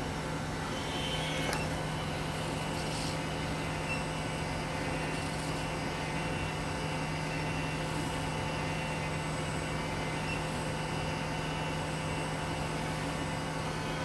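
Steady low machine hum with a few faint steady tones above it, from the equipment running in a catheterisation lab.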